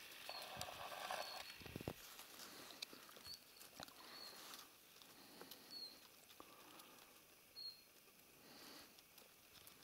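Near silence outdoors: faint short high-pitched chirps every second or so, with soft rustles and a few light clicks.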